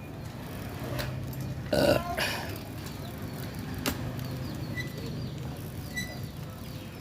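A short, loud, throaty vocal sound about two seconds in, like a burp, followed by a smaller one; faint bird chirps come through over a steady low hum.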